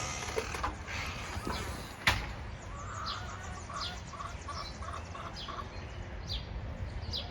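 A back door bangs shut once, sharply, about two seconds in. Birds then call repeatedly: short high falling chirps about once a second, and a quick run of about eight short, evenly spaced notes in the middle.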